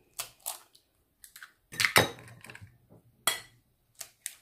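Eggs being cracked on a ceramic bowl: a series of sharp taps and clicks of shell on china, the loudest pair about two seconds in.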